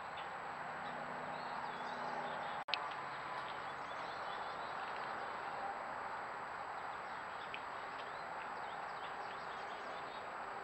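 Woodland ambience through a trail camera's microphone: a steady hiss with small birds chirping on and off, and a thin high tone throughout. A brief dropout with a click comes a few seconds in.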